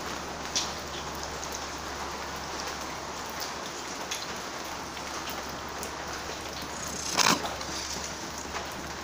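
Steady rain falling on a wet surface, with scattered drips. About seven seconds in there is a brief louder noise.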